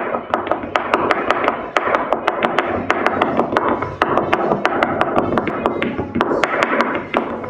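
Flamenco music: guitar with many quick, sharp percussive taps several times a second.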